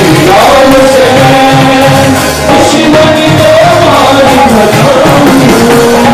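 Live Christian worship song: several singers singing together into microphones over keyboard and drum accompaniment.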